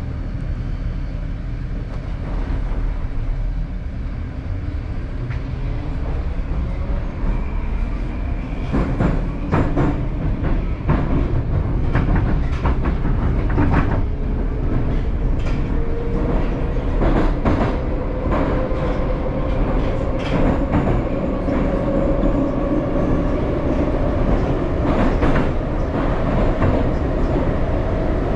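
Moscow metro train heard from inside the car as it pulls away and picks up speed: a steady running rumble with an electric motor whine that rises slowly in pitch, and clicks and clatter of the wheels over rail joints from about a third of the way in.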